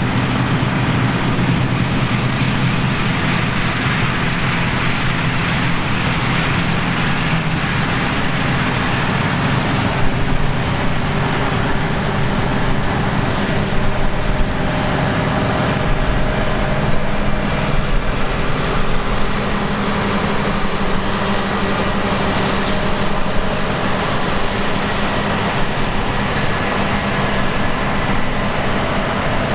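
Heavy diesel farm machinery working steadily: a continuous engine drone with a broad mechanical rush over it.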